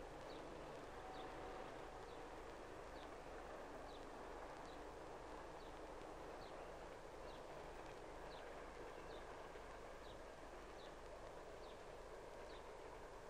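Faint steady hiss of an old film soundtrack, with a faint, short, high chirp repeating at a steady pace, a little under twice a second.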